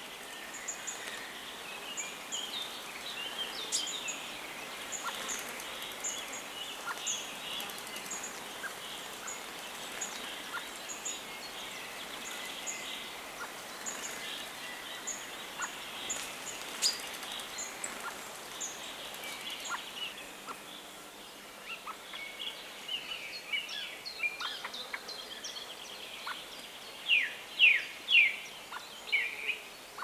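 Woodland songbirds singing and calling together, with a high thin note repeated over and over and, near the end, a few loud notes that sweep sharply downward.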